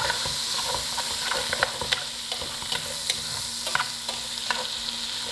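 Bacon sizzling as it fries in a large aluminium pot while it is stirred, with irregular clicks and scrapes of the spoon against the pot.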